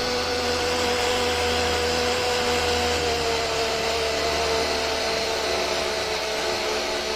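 Twin electric motors spinning the jet drive impellers of a DIY electric surfboard, running with a steady high-pitched whine over a rushing hiss of water and air; the pitch dips slightly about three seconds in.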